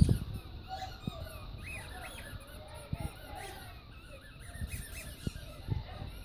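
Rubber squeaky dog toy squeaking in short, irregular squeaks as a Staffordshire bull terrier puppy chews it.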